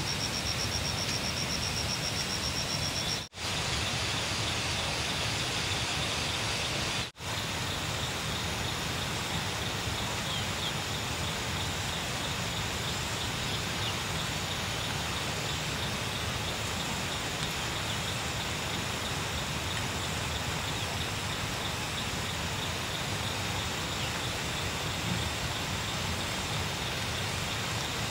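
Steady rain falling as an even hiss, with a faint high thin tone over it for the first few seconds. The sound drops out for an instant twice in the first several seconds.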